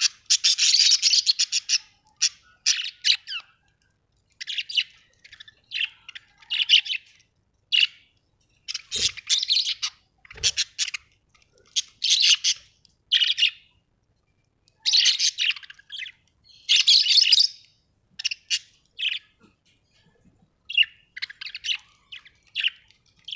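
Budgerigars chirping and chattering in short, irregular bursts of high twittering calls with brief pauses between them. Two soft low knocks come about nine and ten seconds in.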